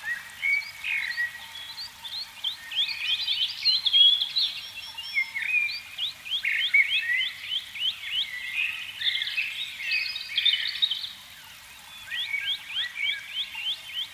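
A dense chorus of small animals calling: many short, high chirps, each sliding down in pitch, come in quick series of several a second and overlap one another, with a brief lull near the end.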